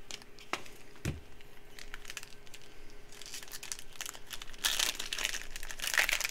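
Foil wrapper of a Panini Prizm trading card pack crinkling and tearing as it is pulled open by hand. The crackle is loudest in bursts near the end, with a soft thump about a second in.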